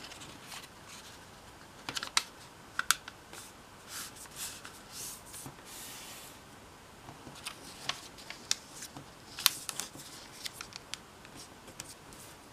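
A sheet of origami paper being folded by hand: crisp crackles and taps as the paper is lifted and laid over, and a smoother brushing a few seconds in as fingers run along the fold to press the crease flat.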